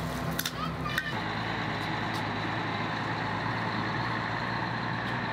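A few sharp knocks in the first second. Then, from about a second in, a Mercedes-Benz Actros 2540 truck's diesel engine runs steadily as the truck drives past.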